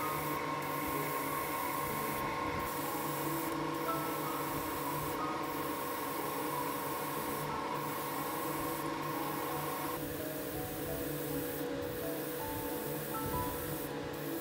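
Airbrush spraying paint in a steady hiss, broken by short pauses every second or two as the trigger is let off. Soft background music plays underneath.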